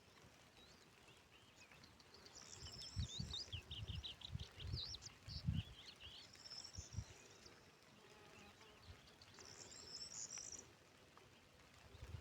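Faint songbirds chirping, with three short bursts of trilling song spaced a few seconds apart. Soft low thumps sound now and then beneath them.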